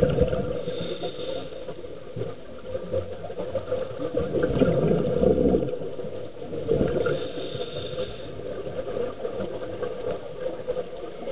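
Underwater sound of a scuba dive: a steady low drone with rushes of exhaled regulator bubbles swelling up about four and seven seconds in.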